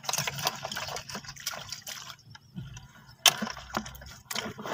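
Shallow water splashing and sloshing in irregular bursts, busiest in the first two seconds, with one sharp splash a little past three seconds in.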